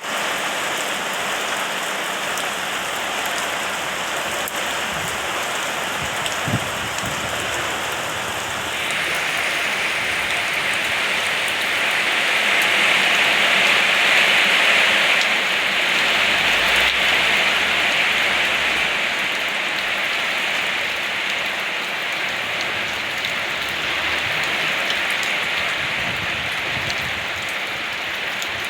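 Steady rain falling, getting heavier about nine seconds in.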